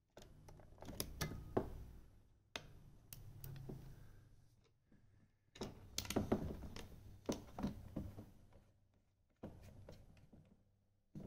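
Small plastic clicks, taps and knocks of a camouflage trail camera being handled as its memory card is fitted, coming in several short clusters with pauses between.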